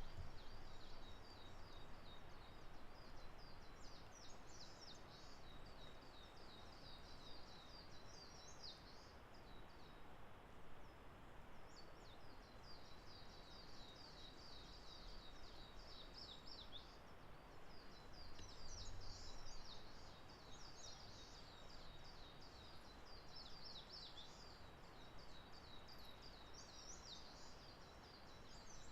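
Faint, high-pitched songbird singing: long runs of rapid twittering notes, broken by a short pause about ten seconds in, over a steady background hiss.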